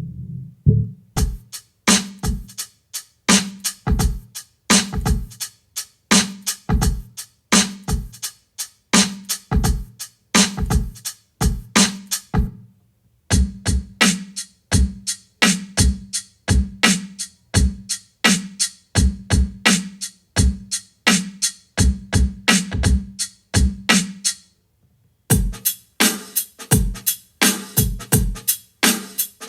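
Electronic drum-machine beat: deep kick-drum thuds alternating with snappier drum hits in a steady, repeating pattern, which stops briefly twice.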